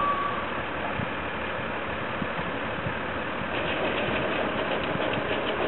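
Farm tractor's diesel engine running steadily while its trailer is tipped to dump sugar beets into an open rail wagon, with a few faint knocks.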